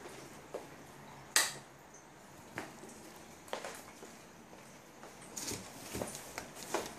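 A few scattered sharp clicks and light knocks, the loudest a single sharp click about a second and a half in, with a small cluster of clicks near the end.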